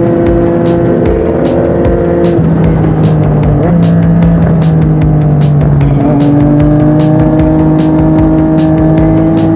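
Yamaha MT-09 inline-three engine breathing through an Akrapovic shorty exhaust while riding. It holds a steady note, changes note about two and a half seconds in, then climbs gradually under throttle.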